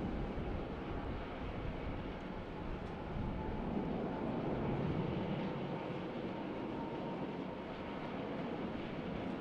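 Jet airliner engines running: a steady, dense rumble with a faint, thin whine above it.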